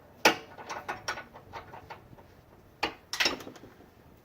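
Hand tools clinking and knocking against metal on a car's front suspension while a sway bar link is being removed. There is a sharp knock about a quarter second in, a few lighter clinks after it, and a quick cluster of knocks around three seconds.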